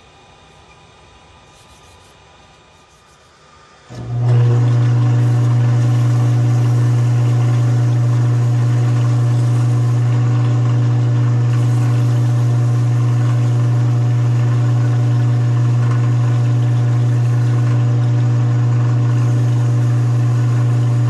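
Wood lathe motor switched on about four seconds in, then running with a loud, steady hum that does not change in pitch, spinning the pool cue shaft for wet sanding.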